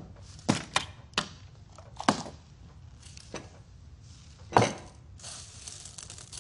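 Objects, among them a ceramic bowl, being picked up and set down on a wooden desk: a series of separate sharp knocks and clicks, the loudest about four and a half seconds in, followed near the end by a longer scraping noise.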